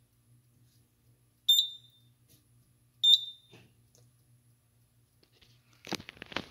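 Fire alarm control panel's piezo beeper giving two short, identical high beeps about a second and a half apart while the system is being reset. Near the end, a brief burst of clattering and rustling.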